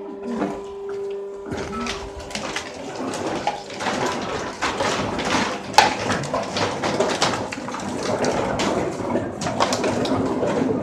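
Plastic PET bottles crackling and clattering inside a large sack as it is heaved up into the feed hopper of a bottle baler. A steady hum cuts off about one and a half seconds in.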